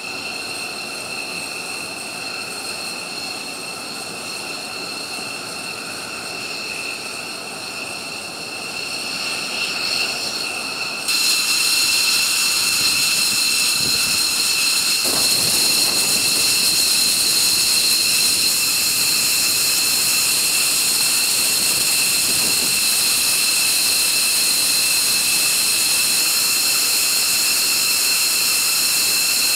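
F-15 Eagle jet engines running on the ground: a steady high-pitched turbine whine over a continuous rush. About eleven seconds in it gets abruptly louder and brighter and then holds steady.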